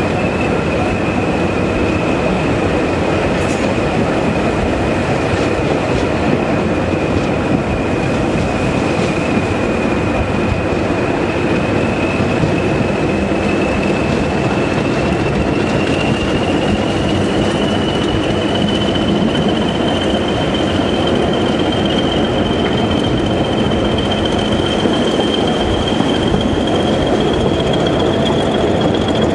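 A pair of English Electric Class 20 diesel locomotives running under power with their train: a dense, steady engine and rail rumble under a high whistle that climbs slowly in pitch from about halfway through.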